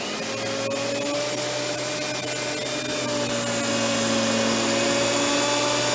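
Hoover Windtunnel Plus canister vacuum (model S3639) running with its power brush just switched on. A steady whine starts as the brush comes on and grows gradually louder.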